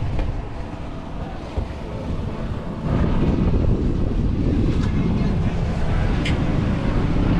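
Wind buffeting the microphone on an open boat, a steady low rush that gets louder about three seconds in.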